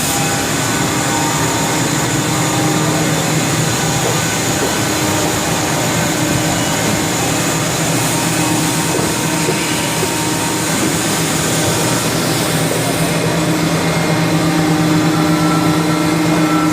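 Haas VF-4SS CNC vertical machining center running: a steady mechanical hum over a constant hiss, with a few steady tones that grow somewhat stronger in the second half.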